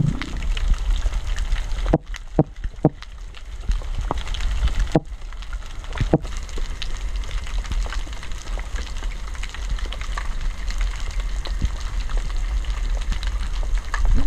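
Underwater sound: a steady crackling hiss over a low hum, broken by a short low grunt at the very start and several sharp knocks, three about two seconds in and two more around five and six seconds. The sharp, low noises are made by a flying gurnard trying to scare off the diver.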